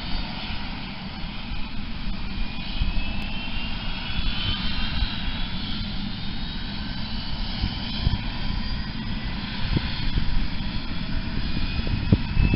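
Helicopter turbine engine and rotor running as it lifts off from a helipad: a steady low rumble with a high turbine whine that glides slowly upward. The low rumble grows louder and gustier near the end.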